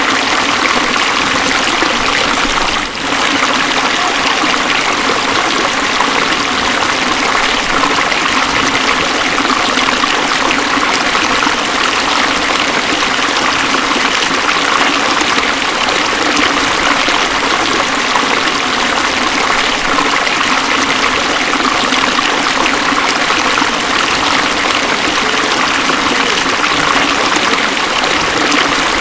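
The Beas River, a fast mountain river, running steadily, with a brief dip in level about three seconds in.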